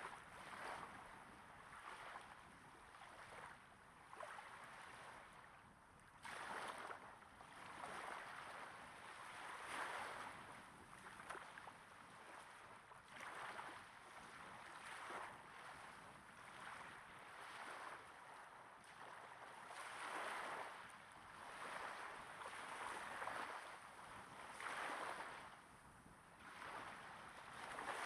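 Small waves breaking gently and lapping on a sandy beach, heard close up. Each wash swells and fades, with a new one every second or two.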